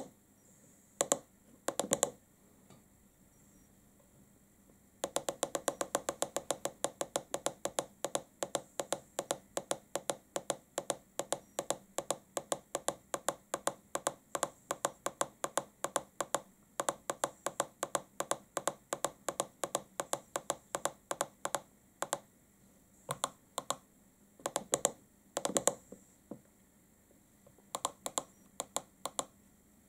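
Plastic buttons of a handheld iCarsoft LR V1.0 diagnostic scan tool clicking under a fingertip. A few single presses come first. About five seconds in, a long run of rapid, evenly spaced presses begins, and toward the end the presses become sparser.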